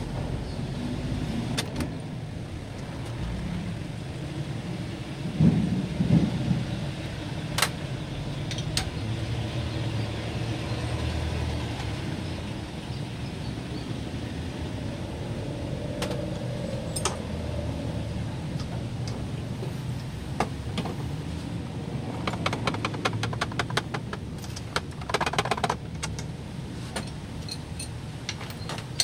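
Steady low rumble with scattered sharp metallic clicks and clinks, and a quick run of them a few seconds before the end.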